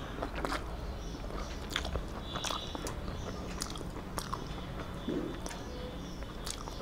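Close-miked eating sounds: chewing and wet mouth smacks of someone eating rice mixed with beetroot bharta by hand, with sharp clicks scattered irregularly throughout.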